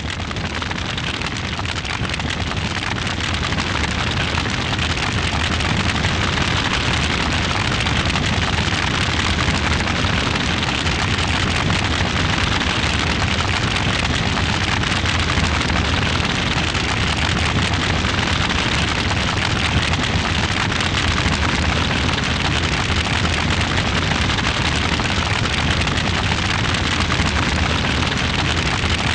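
Large fire burning steadily: a dense rush of flame noise over a low rumble, swelling up over the first few seconds and then holding even.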